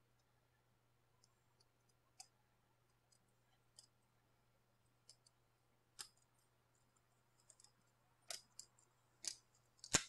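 Faint, scattered light clicks and taps, sparse at first and louder and more frequent in the second half, the loudest about ten seconds in, over a faint steady low hum.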